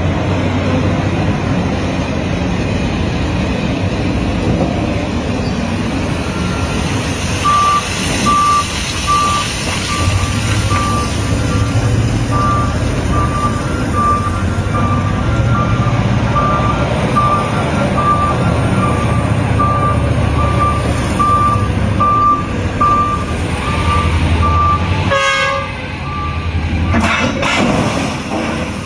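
A heavy machine's engine runs steadily while its reversing alarm beeps at an even pace, about three beeps every two seconds. The beeping starts about a quarter of the way in and stops shortly before the end. A sudden sharp knock sounds about three-quarters of the way through.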